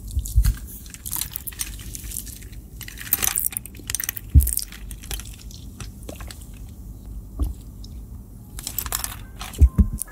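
Ice cubes clinking against a glass bowl and a metal straw as the straw stirs them, with sips of iced tea through the straw. There is a dense rattle of clinks about nine seconds in.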